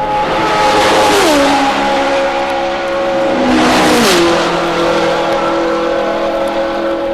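Two 1966 Formula One racing cars passing at full speed on the Masta straight at Spa, one close behind the other. Each engine note falls sharply as its car goes by, the first about a second in and the second about four seconds in, and the second car's note runs on steadily as it fades into the distance.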